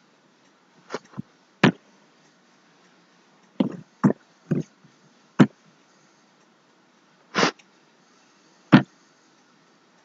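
About nine short, sharp noises close to the microphone, scattered at irregular intervals of a fraction of a second to two seconds, with silence in between.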